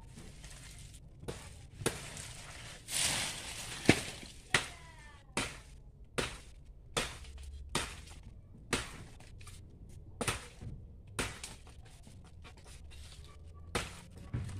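A blade chopping into a coconut palm's crown: sharp, separate strikes about one a second, the loudest near four seconds in, just after a brief noisy rush.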